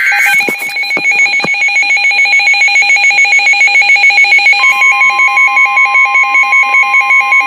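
Emergency Alert System alert tones. A brief screech of data tones at the very start gives way to a loud, rapidly pulsing electronic alarm warbling at about six beats a second. About four and a half seconds in, a steady, high single alert tone joins it, like the 1050 Hz Weather Radio warning tone.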